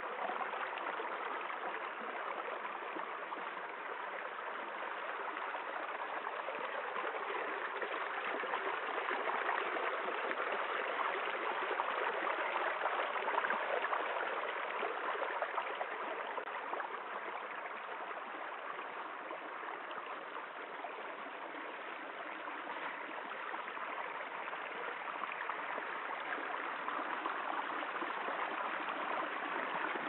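Shallow rocky stream running steadily, water trickling and splashing over stones and small cascades.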